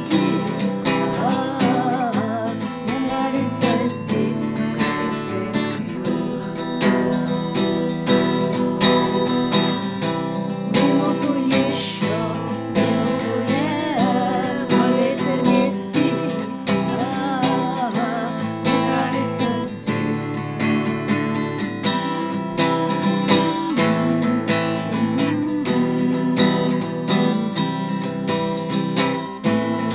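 Stagg acoustic guitar strummed in a steady rhythm, with two women's voices singing a song together over it.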